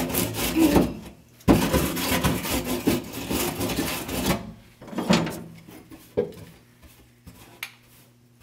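Rough scraping and rubbing as an old rubber patch is pried and pulled off a truck's floor pan around the shifter opening: two long scraping stretches in the first four seconds, a shorter one about five seconds in, then only small scuffs.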